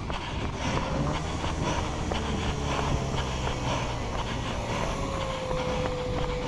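A runner's footfalls, rhythmic and steady as heard from a head-worn camera, over a continuous low rumble. A steady tone glides slightly down in pitch over the last two seconds.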